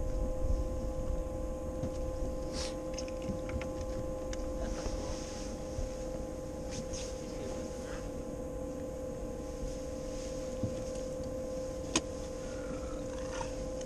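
Bass boat's electric trolling motor running with a steady hum over a low rumble. A single sharp click comes about twelve seconds in.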